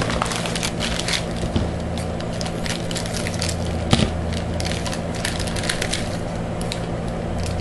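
Packaging crinkling and crackling as it is handled and opened, a dense run of small crackles with a sharper click about four seconds in, over a steady low hum.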